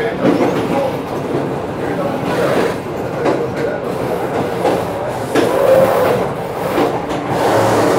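Inside a passenger coach of a locomotive-hauled train running along the line: steady rumble of the wheels on the rails with a few irregular knocks from the track.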